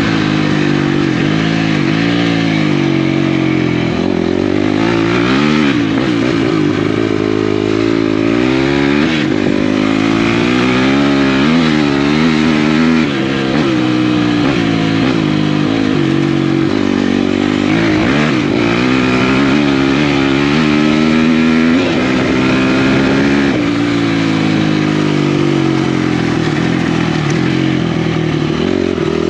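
Single-cylinder four-stroke off-road engine being ridden hard, its pitch climbing and falling again and again as the rider accelerates, shifts and backs off for turns.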